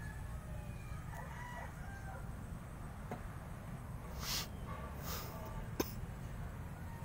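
A rooster crowing faintly over a steady low rumble, with two brief scratchy rustles about four and five seconds in and a sharp click shortly after.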